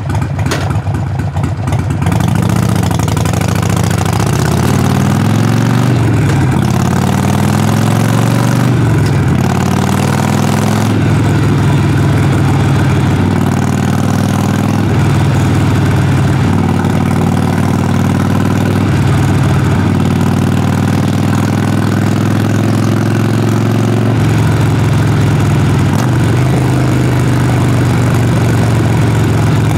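Harley-Davidson Sportster Forty-Eight's air-cooled V-twin running under way through its exhaust. Over the first ten seconds its pitch climbs several times as it pulls up through the gears, then it settles into a steady cruise.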